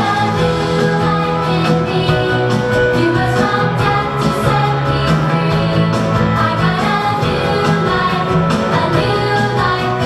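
A song with singing over instrumental backing.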